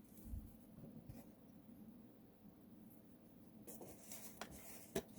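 Faint scraping and light clicks of a plastic remote-control case being handled and worked open, with a dull thump about half a second in and a run of clicks near the end.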